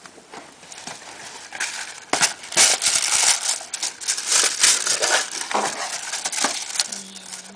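Tissue paper crinkling and rustling as it is handled and pulled open, quiet at first, then a run of loud crackly crinkles from about two seconds in until shortly before the end.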